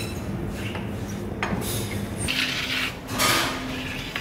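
Restaurant kitchen clatter over a steady low hum: a sharp click about one and a half seconds in, then two brief rattling, hissy bursts of metal and dish noise.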